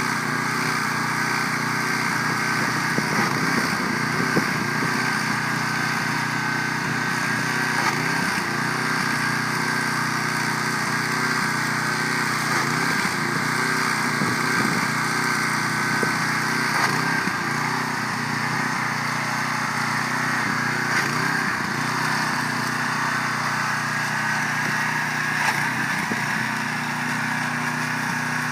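A 2700 PSI pressure washer's small engine running steadily under load, with the hiss of the high-pressure water spray on the siding.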